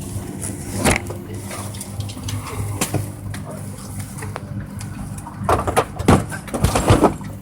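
Steady low hum of a parked airliner during boarding, with scattered knocks and handling rustles, and a cluster of louder bumps about five to seven seconds in.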